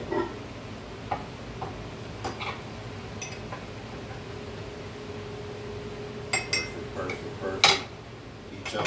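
Glass measuring cups clinking against each other and being set down on a wooden cutting board, with a stir stick tapping inside a cup. There are a few light clinks in the first few seconds, then a quick run of louder knocks and clinks near the end, one sharp knock the loudest of all.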